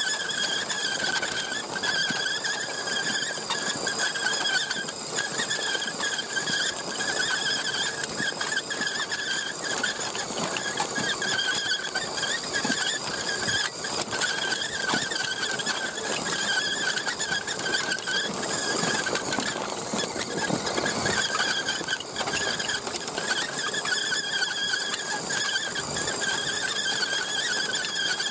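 Radio-controlled truck's electric motor and gears whining steadily while it drives, the pitch wavering a little with the throttle, over a rough rolling hiss.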